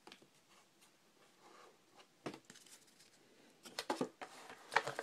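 Trading cards and card packaging handled on a table: a few light, sharp clicks and taps, one about two seconds in and several near the end.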